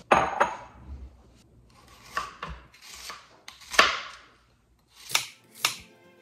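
A glass bowl set down on the countertop with a knock, then a kitchen knife slicing through an onion onto a plastic cutting board in about five separate strokes, the loudest about four seconds in.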